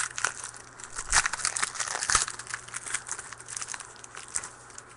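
Wrapper of a trading card pack being torn open and crinkled in the hands, a dense run of irregular crackles that thins out near the end.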